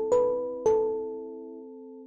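Reason 12 Subtractor software synthesizer playing a patch: notes with a sharp attack that fade slowly and overlap, two new ones struck about half a second apart.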